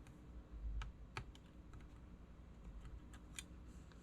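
Faint, scattered clicks and taps of small phone parts and tools being handled on a repair bench, with a soft low thump about half a second in and a few sharper clicks, the clearest about a second in and near the end.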